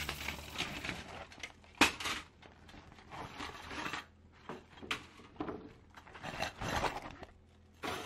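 Handling noise of a flat-pack mini stove being unpacked: a mesh storage bag rustling and thin steel panels clinking and scraping as they are laid down, in a string of irregular knocks, the sharpest a little under two seconds in.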